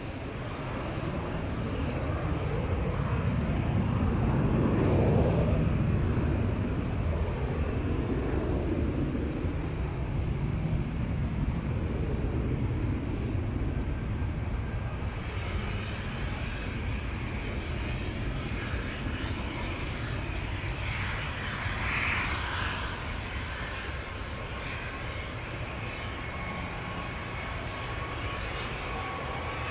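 Jet airliner's engines at takeoff power, swelling to their loudest about five seconds in and then slowly fading as the aircraft rolls away and climbs out. A thin rising whine comes in near the end.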